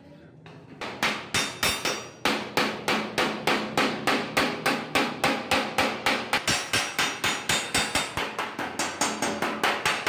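Hand hammer beating the joint seam of a rolled thin sheet-metal washing-machine tub, steady blows about four a second with a light metallic ring. The blows start about a second in, with a brief pause near two seconds.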